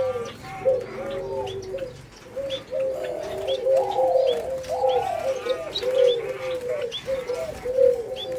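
Eurasian collared dove giving a steady run of short, low coo notes, about three a second, with a few longer rising-and-falling notes around the middle.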